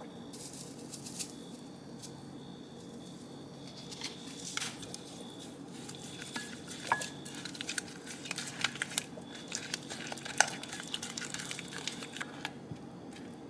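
Kitchen food-prep handling: scattered light clicks and taps of utensils against a bowl and dishes, with some crinkling and squishing, over a steady low hum.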